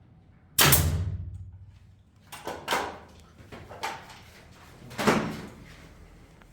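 A series of sudden knocks and bangs, the loudest two about half a second in and about five seconds in, each with a short decaying ring, and a few lighter knocks between them.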